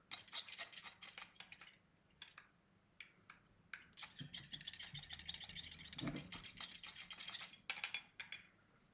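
A metal spatula stirring and scraping black gel polish around the metal colour cup of an airbrush, to darken the mix: quick clicks and scrapes against the cup. The stirring pauses about two seconds in, then picks up again in a run of rapid strokes.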